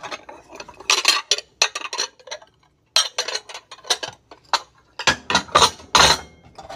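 Restaurant plates and bowls clinking and knocking as they are handled and set down among other dishes on a table. The sound comes in several groups of clinks with a brief silent pause before the middle, and the heaviest knocks come near the end.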